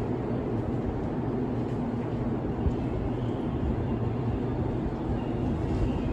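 Steady low rumble and hum in an underground railway station beside an empty track, with faint high tones in the second half.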